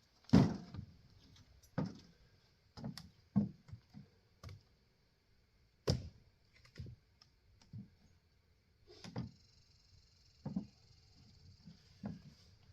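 Irregular wooden knocks and clunks, about a dozen spaced roughly a second apart, the loudest just after the start: Douglas fir firewood being split and handled with an axe.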